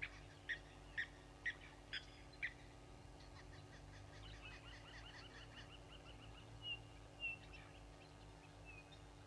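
Wild birds calling: a short high call repeated six times, about two a second, over the first few seconds, then a fast trill of high repeated notes with two louder notes near the end.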